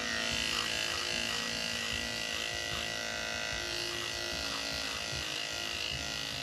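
Electric dog grooming clippers with a #10 blade running with a steady buzz as they shave through a dog's matted coat.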